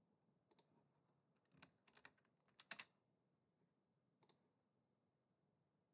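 Faint computer keyboard keystrokes: a few scattered clicks in the first three seconds, then a single click a little after four seconds.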